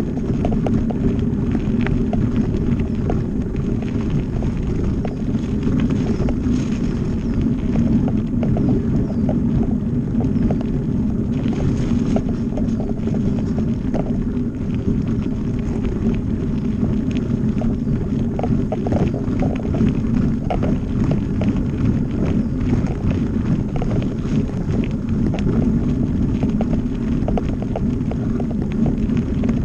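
Mountain bike riding fast over a dirt forest trail: a steady rumble of tyres on the ground, with many small clicks and knocks as the bike rattles over bumps.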